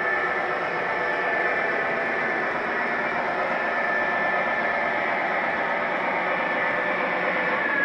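O-gauge model trains running on three-rail track: a steady, even rolling noise mixed with the electronic diesel engine hum from an MTH locomotive's onboard sound system.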